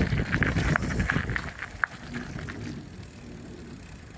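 Bafang BBSHD mid-drive electric bike ridden over a bumpy grass and gravel track: rattling and knocking from the bike over the bumps, with one sharp click a little under two seconds in. It gets much quieter from about two seconds in as the bike slows.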